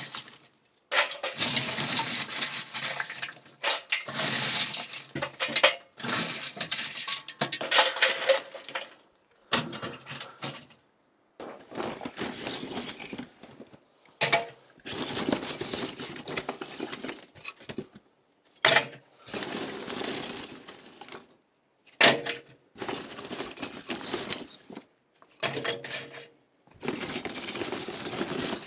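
Leftover charcoal pieces clinking and rattling against metal as old coals are scooped out of a Kamado Akorn grill's firebox. The sound comes in bursts of a second or a few seconds, with short pauses between them.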